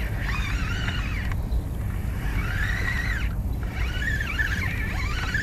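Spinning reel being cranked to fight a hooked fish, its gear whine wavering up and down in pitch as the cranking speed changes, over wind rumbling on the microphone.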